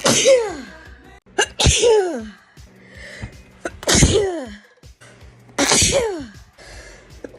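A rapid series of four sneezes, one every second and a half to two seconds. Each is a sharp hissing burst that ends in a voiced 'choo' falling in pitch.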